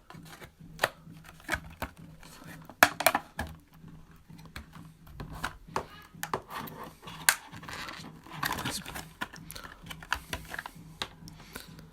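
Packaging being handled and worked at by hand: irregular crinkling, clicks and taps, with a few louder knocks.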